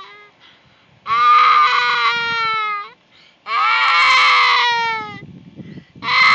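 Young child crying in long, loud wails: two full wails of about two seconds each, held at one pitch and dropping at the end, with a third starting near the end.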